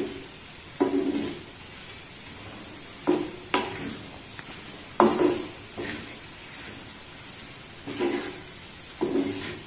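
Wooden spatula stirring and scraping a thick, dry prawn and bilimbi pickle mix around an earthenware pot, in about eight short, uneven strokes. A faint, steady sizzle from the pot on the stove carries on between the strokes.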